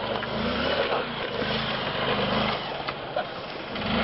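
Motorcycle engine revving unevenly under load as the bike is ridden and pushed up a muddy, rocky slope, its pitch rising and falling with the throttle and getting louder near the end.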